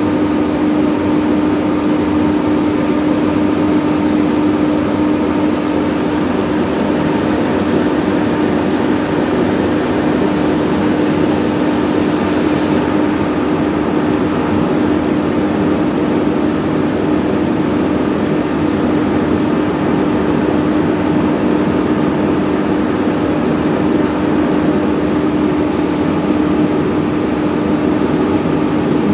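Diesel engine of a Fortuner 100 kVA silent-canopy generator set running steadily at constant speed, an even, loud hum with one strong steady tone, while it powers a bank of test lamps.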